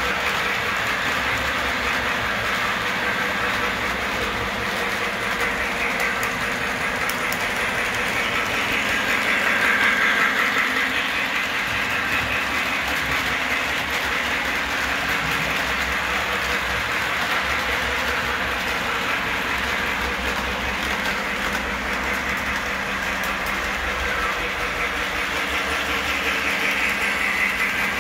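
Model electric trains running around a tabletop layout: a steady whir of the locomotive motors and the rattle of wheels on the track, briefly louder about ten seconds in.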